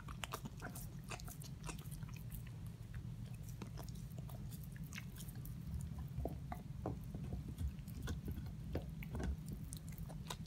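A dog gnawing and crunching on a chew treat: irregular wet clicks and crunches at an uneven pace, over a low steady hum.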